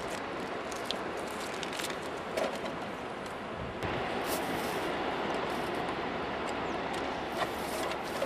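Steady wind blowing across the microphone, with scattered light clicks and ticks from plastic bleach bottles turning on their stick and wire mounts.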